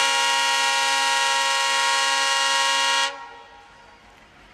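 ALCO diesel locomotive's air horn sounding one long steady blast of about three seconds that cuts off abruptly.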